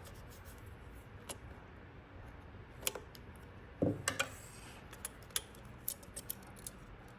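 Flathead screwdriver and small metal parts clicking and scraping as the screws and tension assembly are worked off a Juki DNU-1541S sewing machine head, with scattered light ticks and a louder knock about four seconds in.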